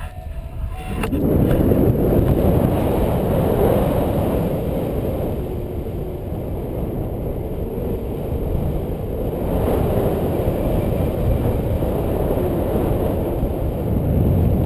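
Wind rushing over the camera's microphone in flight under a paraglider: a loud, low, unsteady noise that sets in about a second in.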